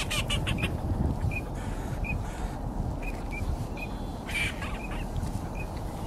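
Ducks calling: short high calls recurring about once a second, with two brief flurries of calls, one at the start and one about four and a half seconds in, over a steady rumble of wind on the microphone.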